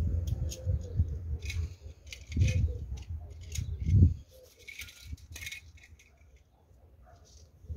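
Small die-cast toy cars clicking and clinking against one another and on brick paving as they are picked up and set down one by one. A low rumble runs under the first half and is loudest about four seconds in.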